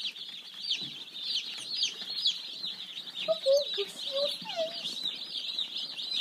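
Many broiler chicks peeping together: a dense, overlapping chatter of short, high-pitched peeps.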